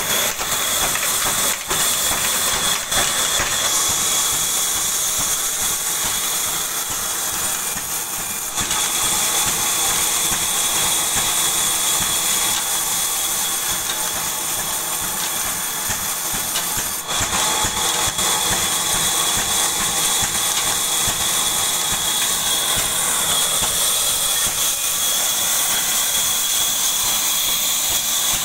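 Old Ruston Hornsby single-cylinder diesel engine running steadily, driving a flat-belt band saw that is ripping a log into planks. The blade cutting the wood adds a steady hiss and a thin high whine over the engine, with a few knocks.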